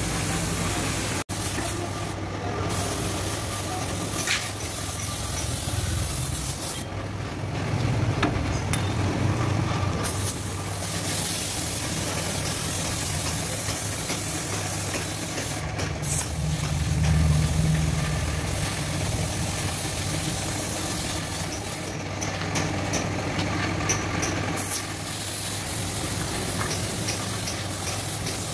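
Compressed-air paint spray gun hissing as it sprays, letting off a few times for a second or more, over a steady low hum.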